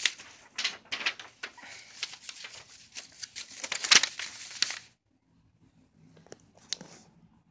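Glossy paper pages of a CD booklet rustling as they are handled and turned: a dense run of sharp rustles for about five seconds, loudest near the fourth second, then a few faint ticks near the end.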